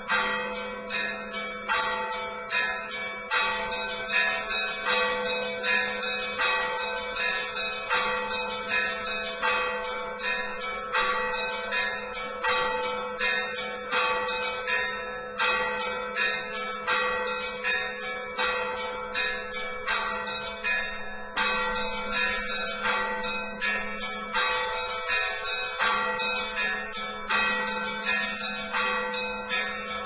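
Russian Orthodox church bells rung together in a continuous rhythmic peal: the smaller high bells strike repeatedly in a steady pattern over the sustained hum of the larger bells.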